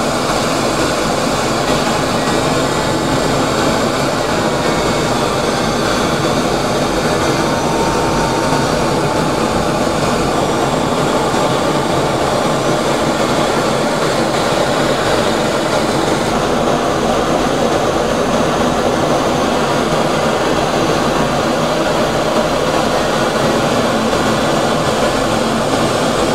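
Jet aircraft noise: a steady, loud, even rushing sound with no breaks.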